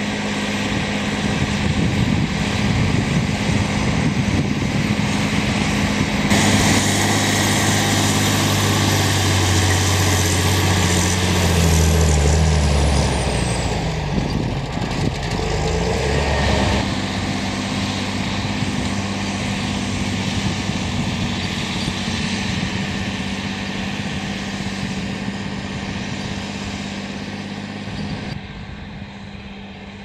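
John Deere 8520's six-cylinder diesel engine running steadily while ploughing. In the middle its pitch shifts and falls with a high whine dropping away, as engine speed changes with the plough lifted at the headland. It settles back to a steady note and fades toward the end as the tractor pulls away.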